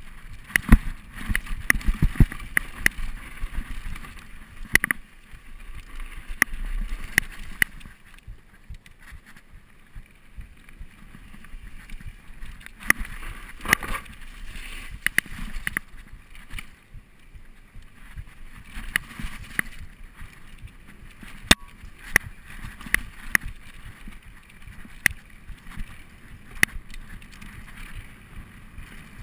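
Mountain bike riding down a dirt forest trail, recorded on a GoPro: a steady rough rush of tyre and riding noise with frequent sharp clicks and knocks as the bike goes over bumps and roots.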